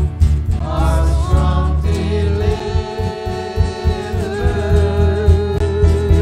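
Live church worship band: women's voices singing over acoustic guitar and a heavy bass, the lead voice holding one long note from about two seconds in.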